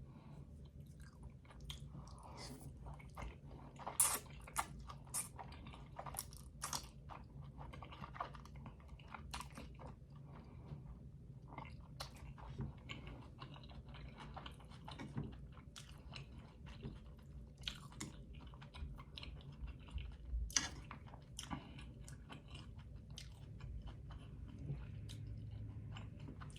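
A person chewing food, with many short wet mouth clicks scattered throughout.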